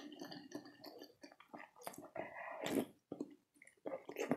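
Close-miked mouth sounds of a person chewing soft food: wet, squishy smacks and clicks at an uneven pace, the loudest a little past halfway.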